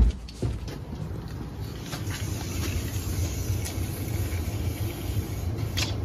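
Steady low hum with an airy rush from the newly started central air-conditioning system running. Two handling knocks come at the very start, and there are a couple of faint clicks later.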